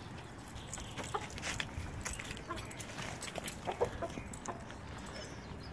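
A brown hen clucking in short, scattered calls.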